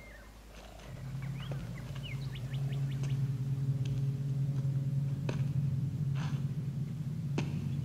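Film score: a low sustained brass-like note swells in about a second in and holds steady. Faint short bird chirps come early, and a few soft clicks follow.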